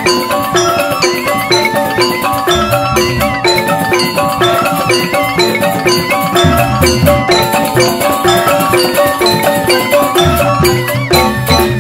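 Balinese joged bumbung gamelan: bamboo xylophones struck with mallets play fast, repeating interlocking figures over kendang hand drums, at a steady loud level.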